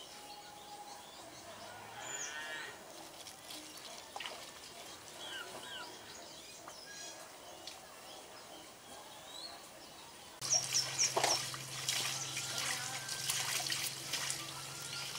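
Quiet outdoor background with birds chirping and a cow lowing. About ten seconds in come close, louder clicks and scrapes of a small knife peeling shallots, over a steady low hum.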